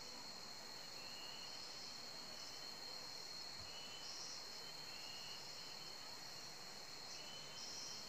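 Insects droning steadily at one high pitch, with a few short, faint bird notes now and then.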